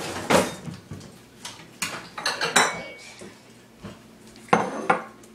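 Metal kitchen utensils clinking and clattering as tongs are fetched from among them: a series of sharp knocks, with two loud ones close together near the end.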